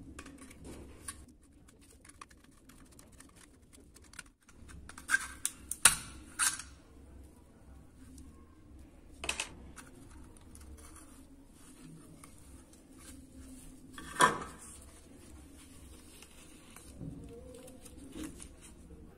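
Pliers and hands working thin rusty sheet metal, bending open crimped tabs and pulling the parts apart: scattered sharp metallic clicks and scrapes. There is a cluster of clicks about five to six and a half seconds in, and a single louder click about fourteen seconds in.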